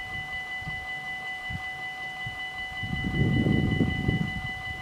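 The electronic warning bells of a Dutch Mini-AHOB level crossing ringing steadily with a high, even ring while the barriers are down. A low, irregular rumble rises about three seconds in and eases near the end.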